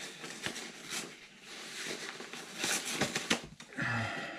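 Rustling and soft clicks of a black fabric mat being rolled up and handled, its strap and buckle knocking. A brief hum near the end.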